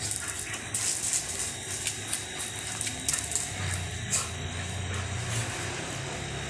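Two dogs play-wrestling on a concrete patio: scuffling, scraping and rustling, with several sharp clicks.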